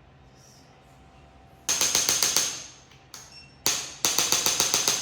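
Handheld chiropractic adjusting instrument firing runs of sharp mechanical clicks, about eight a second. There is a run of about seven clicks a couple of seconds in, a single click, and then a longer run near the end.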